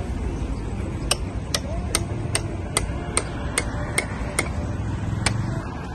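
Hand hammer striking at a steady pace, about two and a half blows a second, nine in a row and then one more after a short pause, each blow sharp with a brief ring. A low traffic rumble runs underneath.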